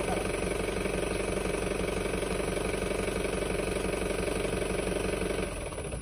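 Mahindra Bolero pickup's engine running steadily at low revs, close by; its sound drops in level near the end.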